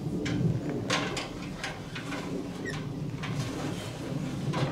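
Irregular wooden knocks and creaks, with a couple of short squeaks, as a framed timber roof piece is hauled up a ladder on a rope and pulley.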